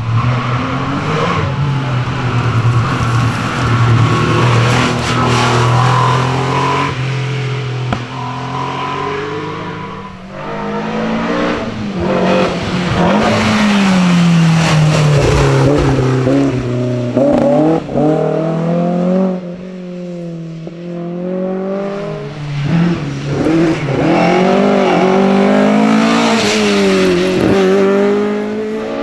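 Historic rally cars, among them a Porsche 911 and a BMW E30 M3, passing one after another at full throttle. The engines rev up and drop back again and again through gear changes and braking, with short lulls between cars.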